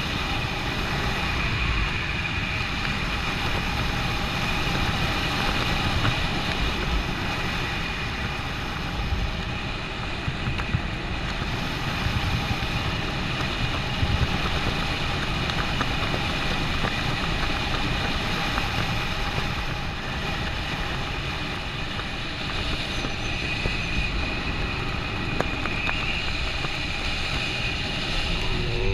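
Steady wind rushing over the microphone of a body-worn camera as a skydiver glides down under an open parachute, with a faint steady high whine running underneath.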